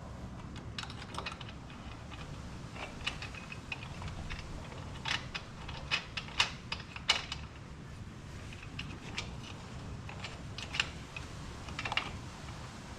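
Irregular light clicks and taps of small metal hardware and parts being handled while a ratchet strap is mounted. The taps are loudest around the middle, over a steady low hum.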